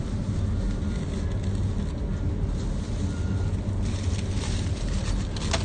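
Steady low rumble of supermarket background noise, with a few light crackles about four seconds in and just before the end.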